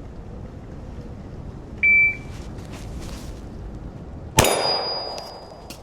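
A shot timer's start beep, a short steady tone, then about two and a half seconds later a single shot from a 9mm Glock 43X pistol. A high metallic ringing follows the shot and fades over about a second, the ring of a struck steel plate.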